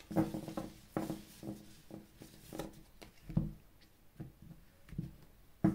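Tarot cards being shuffled by hand and laid down on a cloth: a string of soft, irregular taps and slaps, the loudest about three and a half seconds in and just before the end.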